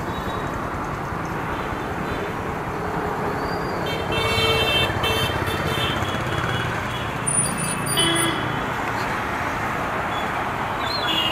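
Steady city street traffic, with vehicle horns honking about four seconds in and again briefly around eight seconds.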